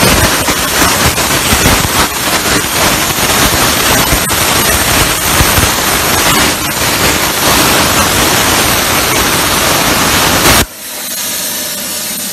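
CNC plasma torch cutting a metal tube: a loud, steady hiss of the cutting arc that cuts off suddenly about ten and a half seconds in, leaving a fainter hiss.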